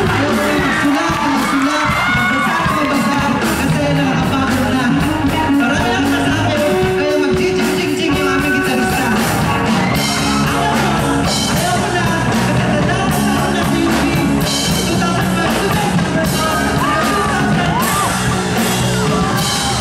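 Live amplified rock band playing, with a man singing into a microphone over a steady drum beat, and some yelling.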